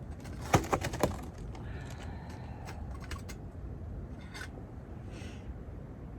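Sharp clicks and taps from handling a folding camp stove and its fuel canister: a quick run of loud clicks about half a second to a second in, then a few scattered lighter ones, over a steady low rumble.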